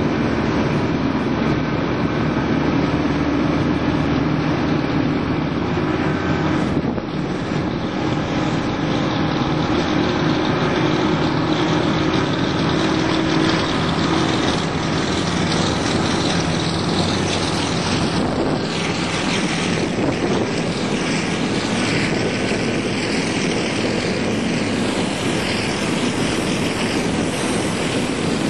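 Boat engine running steadily at cruising speed, with wind and water rushing past the hull.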